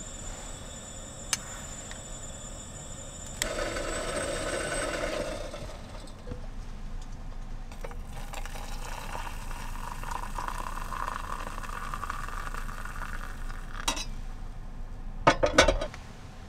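Dishes and utensils being handled: a single click about a second in, a couple of seconds of rushing noise, then a quick run of sharp clinks near the end, the loudest part.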